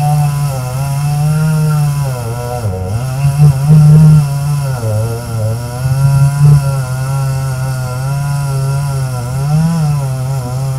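Chainsaw running hard in a cut through a big tree trunk, its engine note sagging under load a few times and picking back up.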